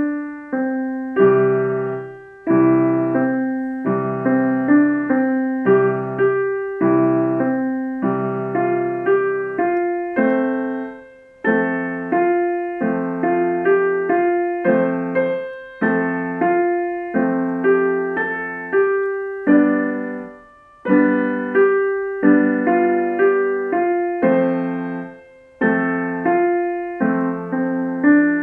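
Piano playing a simple beginner's rock-style piece in short repeated phrases, with low held chords in the left hand and brief pauses between phrases.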